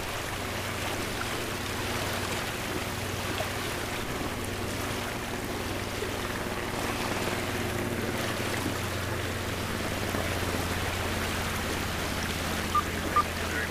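Water rushing steadily along the hull of a C&C 39 sailboat under way, a continuous wash with a steady low hum beneath it. Two short high electronic beeps sound near the end.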